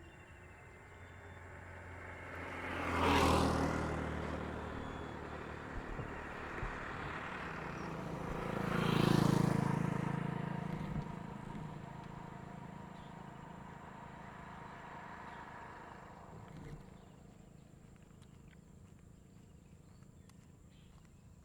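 Two motor vehicles passing by on a road one after the other, the first about three seconds in and the second about nine seconds in, each engine swelling up and fading away as it goes past.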